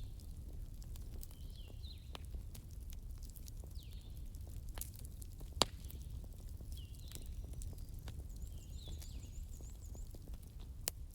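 Campfire crackling with scattered sharp pops, one much louder pop about halfway through, over a low steady rumble. A bird calls repeatedly with short falling notes, and a faint high trill comes in near the end.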